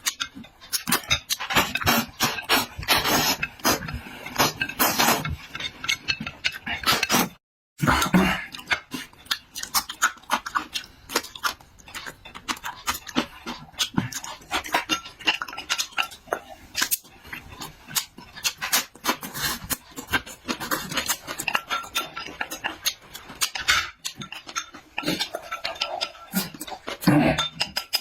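Eating sounds: wet chewing and smacking with many small clicks of cutlery against a bowl or dish, broken by a brief cut to silence about seven seconds in.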